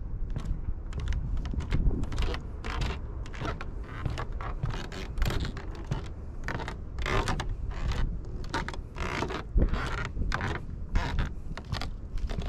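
Footsteps on the planks of a wooden boardwalk, knocking about twice a second, with wind rumbling on the microphone.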